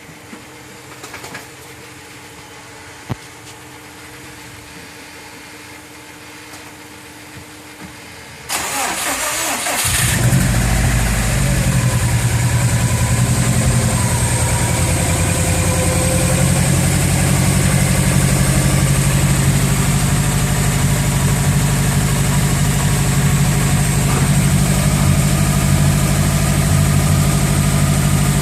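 Car engine cranked over by the starter about eight seconds in, catching after a second or so and then idling steadily. The owner calls it a bad motor.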